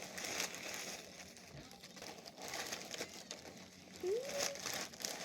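Packaging and wrapping being handled and crinkled while a parcel is unpacked: continuous irregular rustling and crackling.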